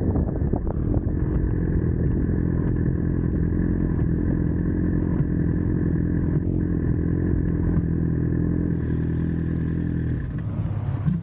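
Suzuki GSX-R750's inline-four engine running at a steady, unchanging pitch, with some light clatter. About a second before the end the engine note drops and changes.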